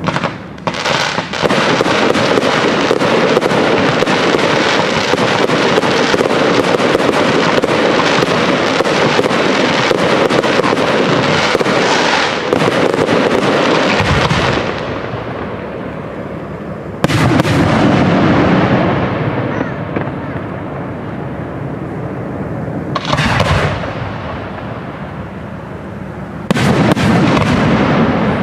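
Aerial fireworks display: a continuous rapid barrage of bangs and crackles for about the first half, then three separate shell bursts, each sudden and then echoing away.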